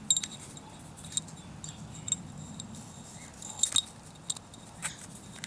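Scattered small clicks and light handling as a rubber O-ring is stretched by hand over the threaded metal cap of a cartridge oil filter housing and worked into its groove.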